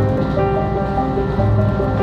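Background music: sustained chords over a low bass line, the bass note changing about a second and a half in.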